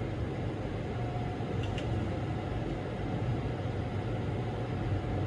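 Steady low mechanical hum with a hiss over it, unbroken throughout, with one faint light click about two seconds in.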